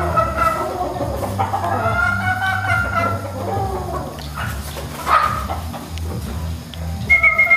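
Gamecocks crowing and clucking, with one long crow that rises and then falls about a second and a half in.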